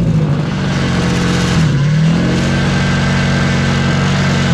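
Honda L15B7 1.5-litre four-cylinder engine, turbocharger removed, running on a test stand just after being started, on a standalone ECU with only the crank sensor and no cam signal. The revs dip about two seconds in, climb back and then hold steady.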